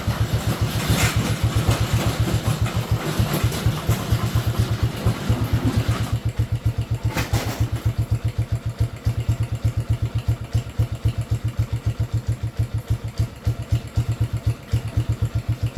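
Yamaha Raptor 80's small single-cylinder four-stroke engine idling with an even, steady putter on a freshly fitted carburetor, the idle set slightly low. Two brief clatters come about a second in and about seven seconds in.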